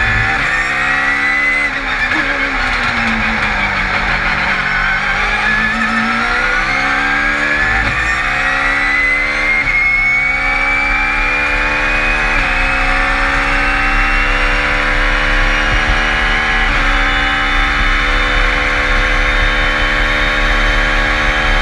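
Lexus Super GT500 race car's turbocharged four-cylinder engine heard from inside the cockpit: its pitch falls through downshifts under braking at first, then climbs hard under throttle with several quick upshifts. A high whine rises steadily with road speed throughout.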